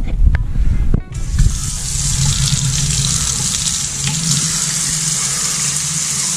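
Kitchen faucet turned on about a second in after a few handling knocks, then running steadily into a metal bowl holding an outboard thermostat, cold water to make the thermostat close.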